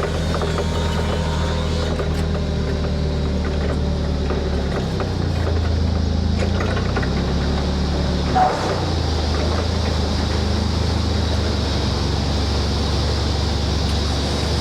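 Engine running steadily at a constant speed, with one short knock about eight and a half seconds in.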